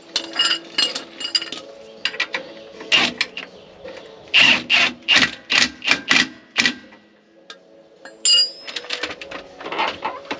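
Cordless impact wrench hammering in a string of short bursts with brief pauses, driving the lower mounting bolt of a rear shock absorber tight on the axle bracket.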